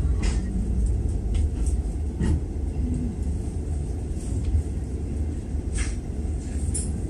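Inside a moving passenger train carriage: a steady low rumble of the train running on the rails, with a few short sharp clicks and creaks scattered through it.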